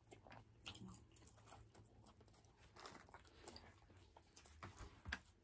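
Faint chewing and mouth sounds of people eating fast-food breakfast sandwiches, with a few soft clicks scattered through an otherwise very quiet room.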